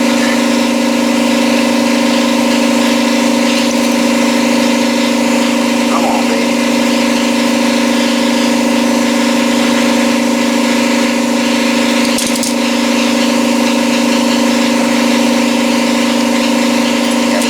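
Steady mechanical hum at one constant pitch, most likely the shop air compressor running, with a faint hiss and one small click about twelve seconds in.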